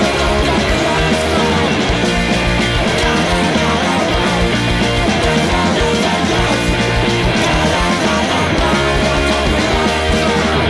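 Loud rock music from a band, with electric guitar over a steady drum beat.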